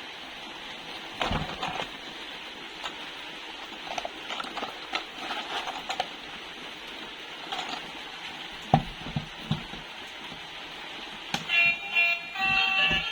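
Scattered light clicks and knocks of small plastic toys being handled, over a steady hiss. A music jingle starts near the end.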